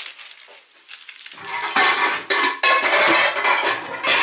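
Clear plastic freezer bag crinkling loudly as a ball of dough is pressed flat inside it by hand, starting about a second and a half in.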